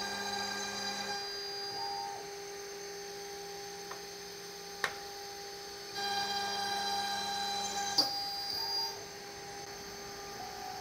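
High-speed router spindle of an all-in-one woodworking machine running with a steady whine while boring holes. A second motor whirs louder in two spells, around the start and from about six to eight seconds in. There are sharp clicks near five seconds and at eight seconds.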